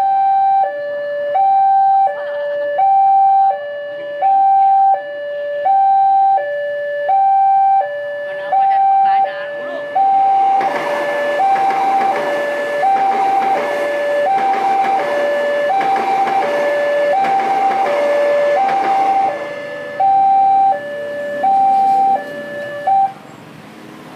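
Railway level-crossing warning alarm sounding a loud electronic two-tone signal, alternating high and low about once every second and a half. From about ten seconds in, a rushing noise of a train passing over the crossing swells under it for some ten seconds. The alarm stops near the end.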